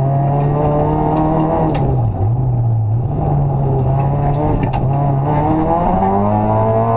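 Rally car engine running at high revs, heard from inside the cabin. The revs dip briefly about two seconds in, then climb again near the end, with a few sharp ticks over the top.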